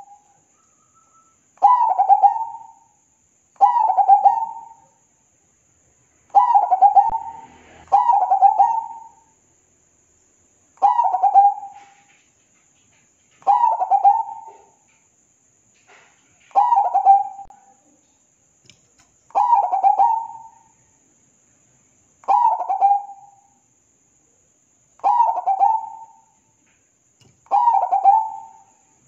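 Zebra dove (perkutut) singing: a series of about eleven short cooing phrases, each about a second long with a quick stuttering run of notes, repeated every two to three seconds.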